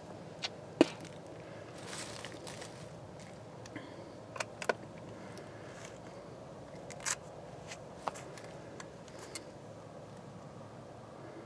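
Quiet outdoor background with a scattered series of small sharp clicks and light knocks, the sharpest about a second in; handling noises between rifle shots.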